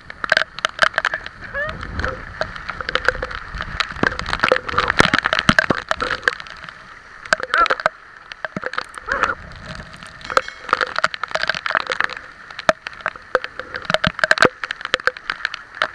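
Heavy typhoon rain pouring down, with many sharp drop hits right on the camera and a constant rushing of wind and floodwater.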